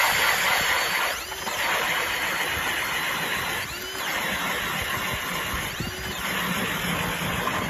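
Ice auger driven by a cordless drill boring through lake ice: a steady whir of the motor and the spiral blades cutting and shaving ice. The pitch sags and recovers briefly three times as the blades bite.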